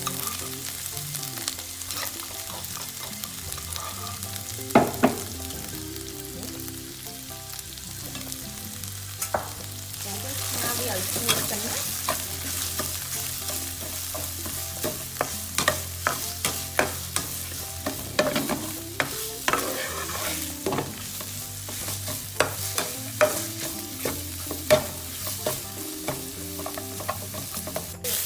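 Kroeung spice paste sizzling in hot oil in a nonstick frying pan while a metal spatula stirs it. Sharp taps and scrapes of the spatula on the pan come only now and then at first, then thick and fast from about ten seconds in.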